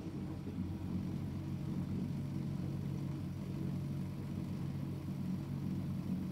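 Miele Novotronic W715 front-loading washing machine running during a rinse: a steady low motor hum.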